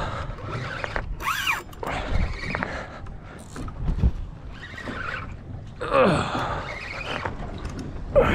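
Large spinning reel being cranked hard against a heavy fish, a gag grouper by its feel. Short sliding squeals from the straining rod and reel gear come about a second in, again around six seconds, and near the end.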